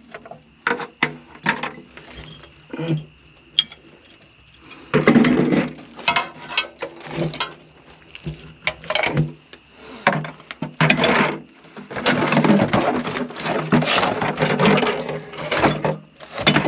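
Metal scrap parts and brass fittings being handled: a run of sharp clanks and knocks, with longer spells of rattling and scraping about five seconds in and again from about ten seconds to near the end.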